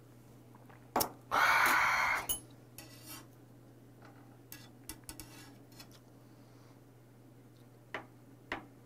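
Tableware and drinking sounds: a small brass cup knocks, a loud breathy exhale follows the shot of soju, and the cup is set down. After that, stainless chopsticks click and tick lightly against a plate while lifting raw beef, with two sharper clicks near the end.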